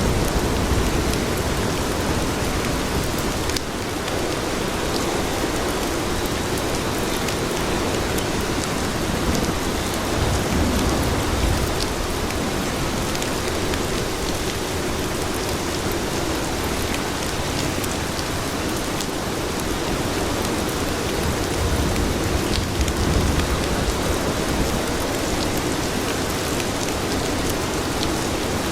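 Steady rain falling on hard surfaces, an even hiss dotted with sharper single drop hits, over a low rumble that swells and fades now and then.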